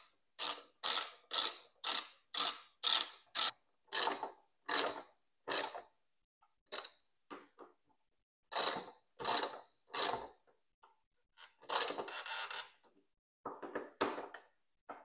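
Ratchet tightening the hex bolts of a motorcycle tank-ring mount: a run of short ratcheting rasps about two a second for several seconds, then a few more in short groups with pauses, one of them a longer rattle.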